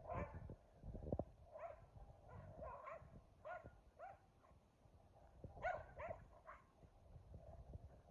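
Two dogs, a Keeshond and a Boston Terrier, play-fighting, with a string of short, faint barks in clusters, the loudest pair about two-thirds of the way through.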